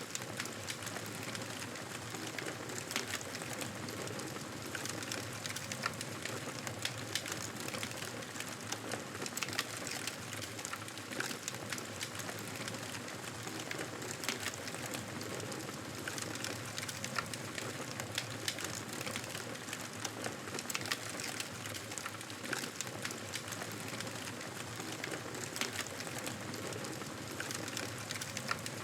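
Wood fire crackling, irregular small pops over a steady hiss.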